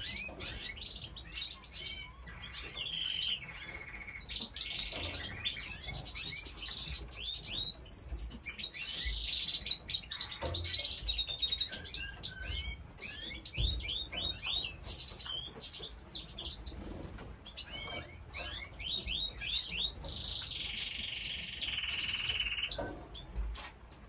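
A flock of small aviary songbirds, yellow canary-like birds among them, chirping and singing continuously with many quick high notes and fast rolling trills.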